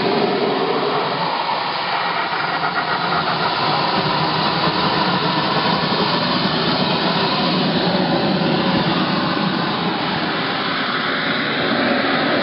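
The engine of a radio-controlled scale model Hawk jet running steadily on the ground, a loud even rushing noise with no changes in pitch.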